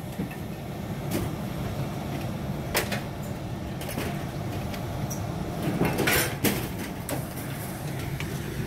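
An engine running steadily in the background, with scattered knocks and clunks of cabinet doors being opened and shut, loudest in a cluster about six seconds in.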